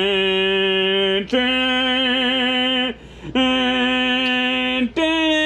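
A man's voice chanting long held notes, four in a row, each about a second and a half, the pitch stepping up from note to note, with a short break about three seconds in.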